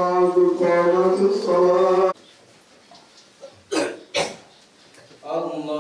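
A male voice chanting Quranic recitation in Arabic, as an imam leads congregational prayer. The recitation stops abruptly about two seconds in. Two short sounds follow around four seconds, then the chant resumes near the end.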